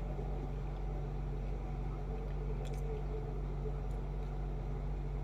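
Steady low hum of room noise, with two faint short clicks in the middle.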